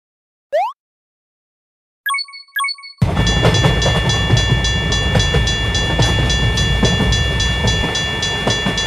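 Train passing, cut in as a sound effect: a loud low rumble with steady high whistle-like tones over it and a fast repeating clatter, starting abruptly about three seconds in. Before it come a short rising boing and two quick chime dings.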